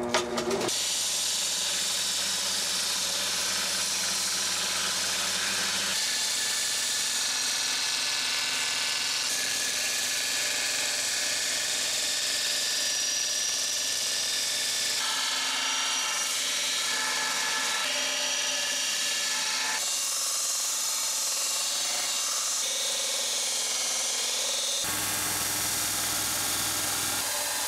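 Belt grinder running with the edge of a firefighter's axe held against the abrasive belt: a steady grinding hiss of steel being sharpened, its tone changing several times. A couple of knocks come just before it settles in.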